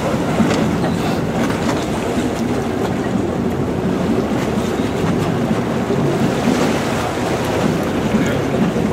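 Steady rumble and water wash aboard a moving Venetian water bus (vaporetto) under way.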